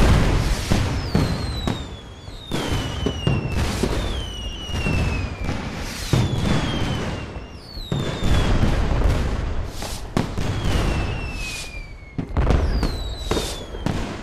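Fireworks going off: repeated bangs and crackling, with several whistling rockets whose whistles fall in pitch.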